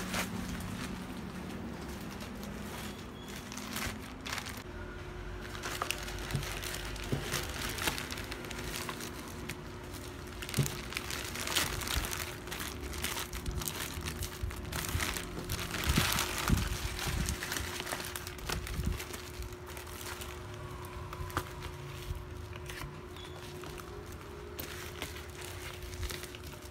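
Plastic bag and bubble-wrap packaging crinkling and rustling in the hands as a parcel is unwrapped, with scattered sharp crackles that are busiest about halfway through. A faint steady hum runs underneath.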